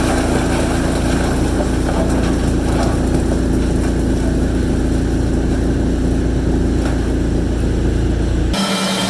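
Heavy sawmill machinery running steadily with a loud, low, even drone. Near the end it cuts off abruptly and a different, steadier machine hum takes over.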